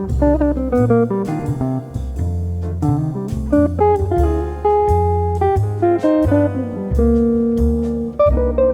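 Background jazz music: a plucked guitar melody over a walking bass line.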